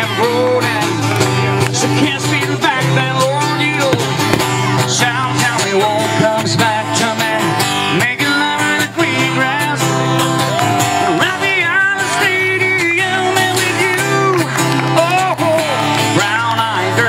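A song with acoustic guitar and a singing voice, playing steadily.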